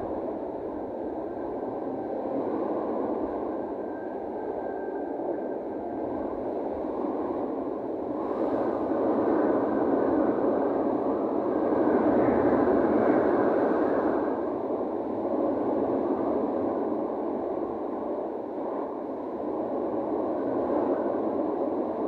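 Wind rushing over the microphone on a cruise ship's open deck above the sea: a steady rush that swells louder near the middle and eases off again.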